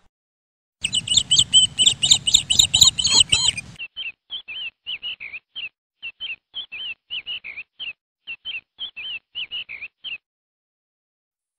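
Small birds chirping: a dense flurry of chirps for about three seconds, then single short chirps repeating about three times a second until they stop near the end.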